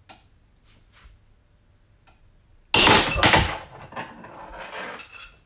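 SK Tools 3/8-inch drive round-head ratchet giving way at about 207 foot-pounds on a torque tester. A few faint clicks come as it takes the load, then, about two and a half seconds in, a sudden loud crack as its drive anvil snaps. Metal clatter follows and dies away over about two seconds.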